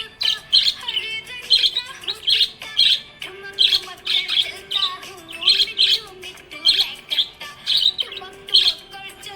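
Small pet parrots chirping busily: sharp high chirps, several a second, with no pause. Under them runs background music with a low held melody line.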